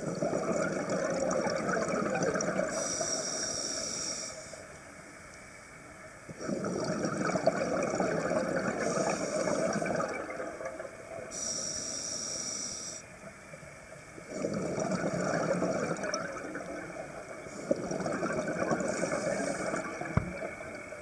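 Scuba diver's breathing underwater through a regulator: long rushes of exhaled bubbles with quiet gaps between them, and two short high hisses of inhaling.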